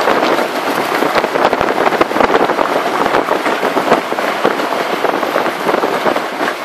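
Strong wind and rough sea on an open boat deck: a loud, continuous rushing noise full of rapid irregular crackles.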